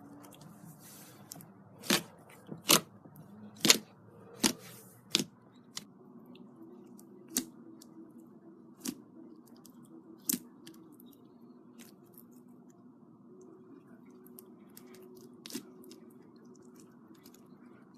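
Slime being squeezed and worked by hand, giving a series of sharp, wet pops and clicks at irregular intervals. They are loudest and closest together in the first few seconds, then come more sparsely.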